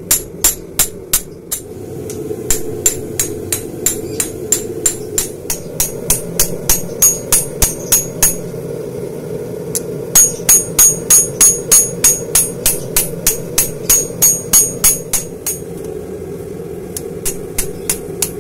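Hammer blows forging a red-hot Böhler N695 stainless steel knife blade on an anvil: sharp ringing strikes about three a second, in several runs with short pauses between them. A steady low hum runs underneath.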